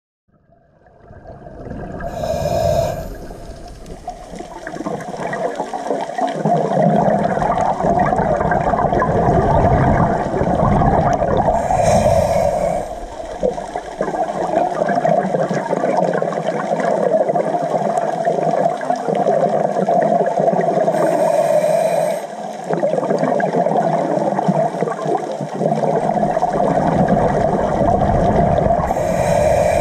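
Scuba diver breathing through a regulator underwater: continuous bubbling, rushing water noise with a short sharp hiss about every nine seconds. It fades in over the first couple of seconds.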